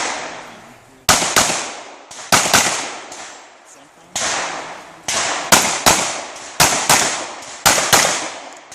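Pistol shots fired in an action pistol stage: about a dozen sharp reports, singly and in quick pairs and triplets, each trailing off in a long echo.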